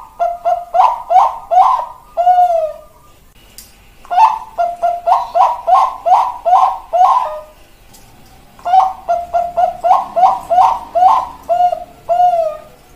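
Bangkok-strain zebra dove (perkutut bangkok) singing its cooing song in three phrases. Each phrase is a quick run of short staccato coos, about four a second, closing on a longer note that falls in pitch.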